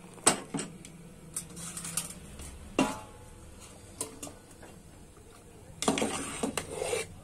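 Metal utensils clinking and scraping against an aluminium pressure cooker and a steel colander as boiled noodles are lifted out to drain. A sharp clink comes about a quarter second in, single knocks follow a little before and after the middle, and a quick run of clatters comes near the end.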